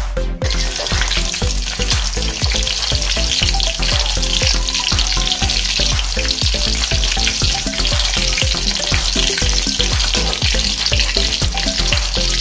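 Breaded corn dogs deep-frying in hot oil in a wok: a loud, steady sizzle that starts about half a second in. Background music with a steady beat plays underneath.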